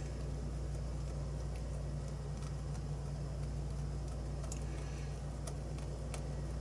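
Steady low hum, with a handful of faint light clicks of small metal lock parts and tools being handled, more of them near the end.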